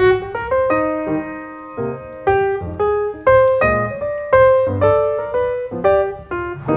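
Solo piano music: a melody of single struck notes, about two a second, each ringing and fading.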